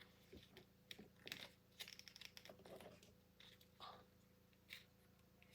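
Near silence with faint, scattered light clicks and short rustles of a plastic action figure being handled and its parts adjusted.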